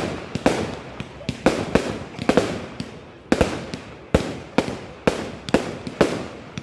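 Fireworks display: a rapid string of sharp bangs from exploding shells, two or three a second, each trailing off with echo.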